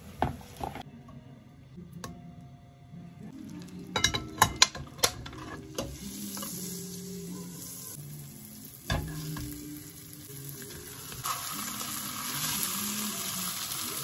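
Food frying in hot oil in a pan, a steady sizzle: tea-leaf tempura, then mackerel fillets. About four to five seconds in comes a quick run of loud, sharp clicks, and the sizzle grows louder over the last few seconds.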